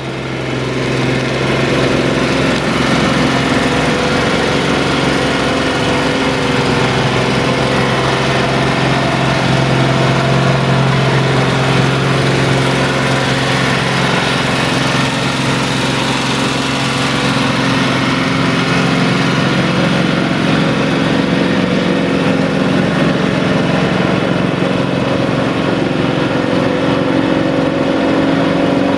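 Diesel engine of a Fiat 1380 DT tractor running steadily under heavy load while pulling a plough through deep mud. Its note changes a little past halfway.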